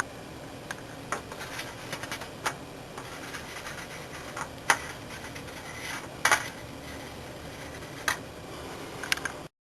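Scattered sharp clicks and light scraping, about eight over several seconds at uneven spacing, over a steady hiss; the loudest come a little before five seconds in and a little past six seconds in.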